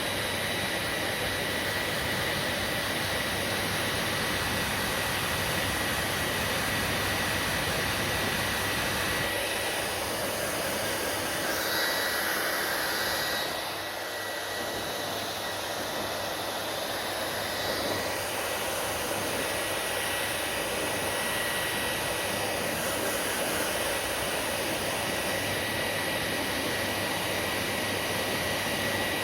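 Hair dryer blowing steadily: a rush of air with a thin, high, steady motor whine. From about ten seconds in, the airflow sound changes for several seconds and dips slightly in level, then settles back to the same steady blow.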